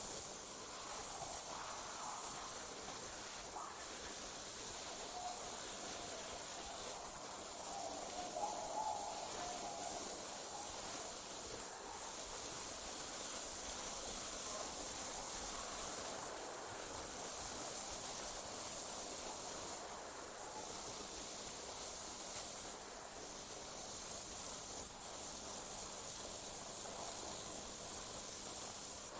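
Night insects, crickets, trilling continuously at a very high pitch, the trill breaking off briefly every few seconds before resuming.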